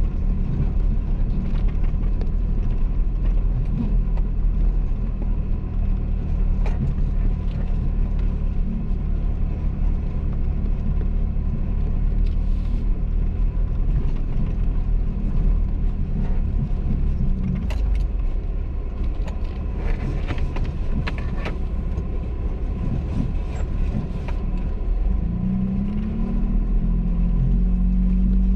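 An off-road vehicle's engine runs steadily while driving over rough ground, with scattered knocks and rattles, most of them between about 18 and 22 seconds in. The engine note rises near the end.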